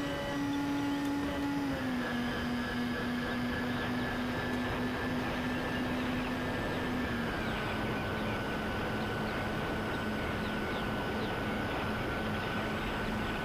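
The twin electric motors and propellers of a Dynam Skybus DC-3 radio-controlled model plane droning in flight, over a rushing hiss. The pitch steps down twice, about 2 seconds in and again about 7 seconds in, as the throttle is eased back.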